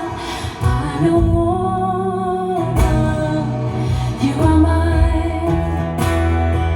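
Live acoustic guitar strummed, with held sung notes over it. A few hard strokes stand out.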